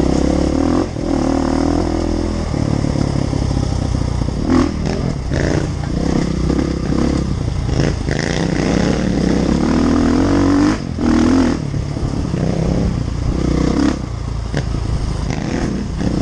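Dirt-bike engine running under a rider's throttle, its note rising and falling again and again, with scattered knocks and clatter from the bike.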